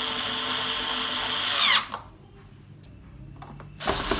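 Power screwdriver driving the screws of a TV's back cover: a run of about two seconds ending in a falling whine, a short pause, then another run starting near the end.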